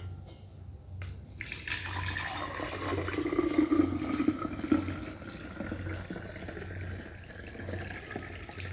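Fermented sherry-based cuatecomate cough syrup being strained, poured in a steady stream starting about a second and a half in.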